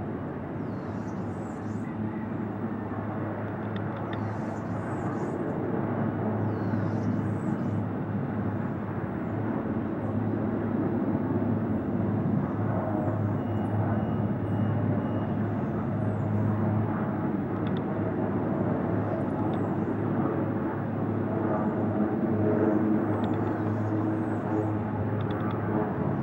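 Helicopter running steadily, a continuous drone with a strong low hum that grows a little louder over the first half.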